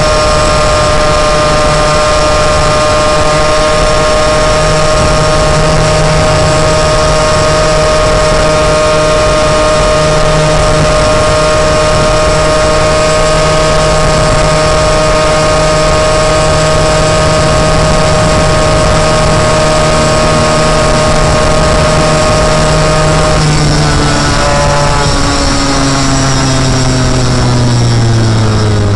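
Moped engine running at a steady pitch under way. About three-quarters of the way through, its pitch starts falling steadily as the moped slows down.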